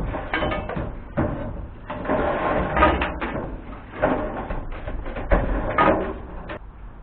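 A run of irregular knocks and clatters with scraping between them, from objects being handled and set down. The sharpest knocks come about a second in, near three seconds and around five and a half seconds.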